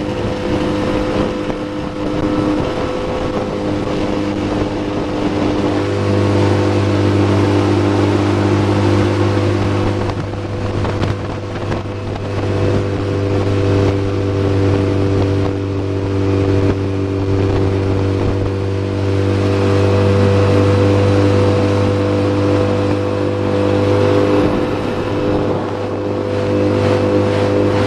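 Yamaha 9.9 hp outboard motor running steadily under way, pushing a small jon boat, at an even pitch that grows a little louder about six seconds in.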